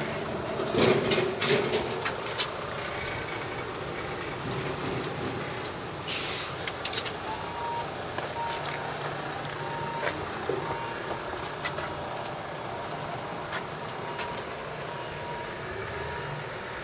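Truck engine running steadily behind a boat trailer, with a few sharp metallic knocks early on and around the middle. From about seven seconds in, a short beeping tone sounds on and off.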